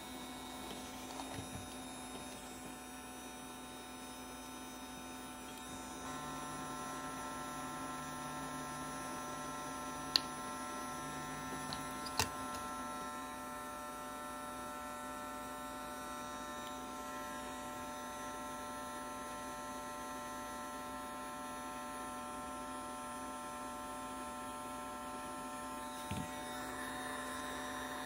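GONGJUE GJ-8018LCD 450 W hot air gun running with a steady hum, a little louder from about six seconds in. Two sharp clicks come about ten and twelve seconds in.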